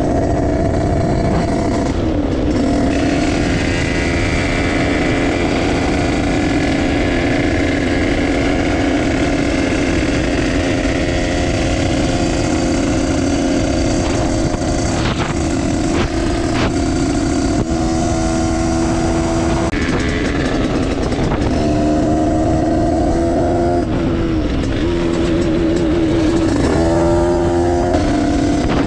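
Two-stroke Derbi Senda moped engine with a Stage6 88cc big-bore kit and Voca Cross exhaust, running hard at road speed, with wind rushing over the helmet microphone. Its note drops and climbs again several times in the second half as the throttle is shut and opened.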